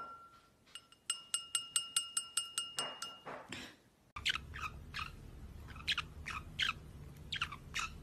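A wine glass rings as a green-cheeked conure taps it with its beak, about five quick taps a second, for the first three seconds. After a cut, a parrot gives a run of short falling calls, two or three a second.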